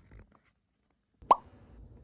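A single short, loud plop about a second and a third in, its pitch sliding quickly upward, with a few faint clicks near the start.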